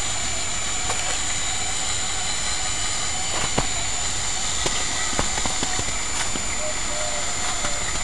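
Radio-controlled scale model of a US M16 half-track driving, its sound unit playing engine noise over the steady whine of its electric drive, with a few sharp clicks.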